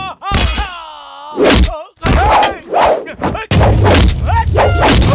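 Film fight sound effects: a series of hard punch and thud impacts mixed with men's grunts and cries. About three and a half seconds in, a loud, low, steady rumble joins under the hits.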